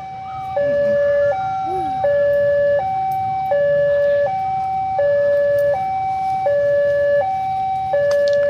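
Railway level crossing warning alarm: an electronic two-tone signal alternating steadily between a higher and a lower note, each held a little under a second, sounding the warning for an approaching train.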